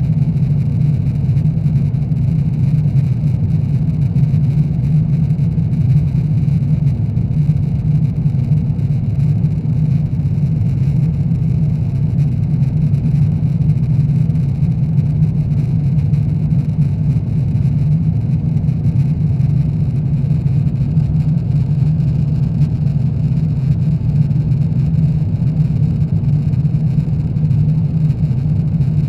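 Steady cabin drone inside an Airbus A350-900 in flight: the Rolls-Royce Trent XWB engines and the airflow over the fuselage give a loud, even, low rumble that does not change.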